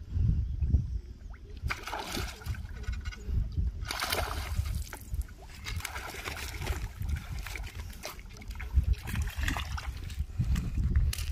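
A hooked rohu splashing and thrashing at the water's surface as it is played on a fishing rod and drawn in, the splashing strongest between about two and six seconds in. A steady low rumble runs underneath.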